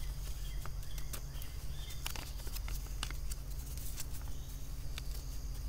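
Outdoor garden ambience: faint insect and bird calls over a steady low rumble, with scattered light clicks and taps.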